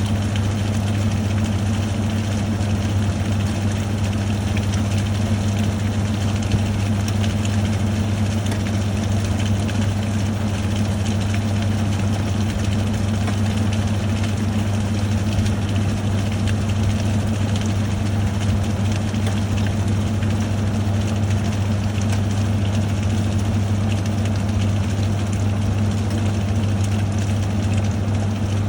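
National NA9450PN compact pulsator washing machine spinning at full speed, about 750–800 rpm: a loud, steady motor hum with an even rushing noise over it.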